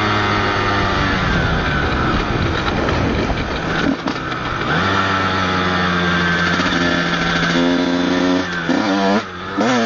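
Honda CR125's two-stroke single-cylinder engine running under way at fairly steady revs. It drops in pitch about a second in and runs unevenly for a moment mid-way. Near the end it revs up and down in quick blips.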